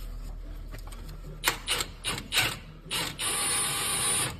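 Cordless impact wrench spinning the forcing screw of a ball joint press: a few short trigger bursts, then a steady run of just over a second with a high motor whine, driving the screw down to press out the ball joint.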